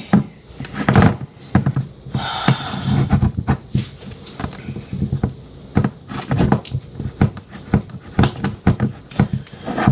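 Knife blade scraping and clicking irregularly against the tin of a key-opening corned beef can as it is worked along the scored line to cut the can open, with a longer scrape about two seconds in.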